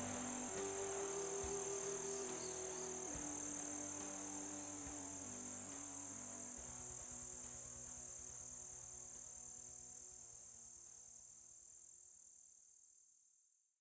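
Crickets chirring in one continuous high-pitched trill that fades out near the end, over faint held low notes that change pitch every second or so.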